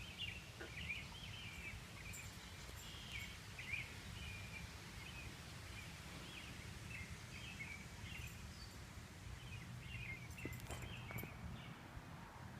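Many short, high chirps repeating irregularly from the swamp, over a steady low rumble.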